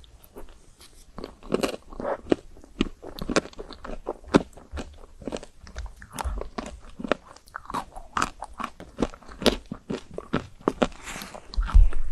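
Biting and chewing chocolate-coated ice cream, the hard chocolate shell crunching with many quick, irregular cracks.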